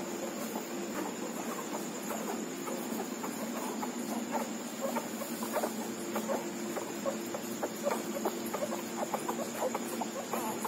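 Newborn Labrador puppies suckling at their mother, a busy run of short, irregular smacking clicks and small squeaks that grows denser after a few seconds, over a steady low hum.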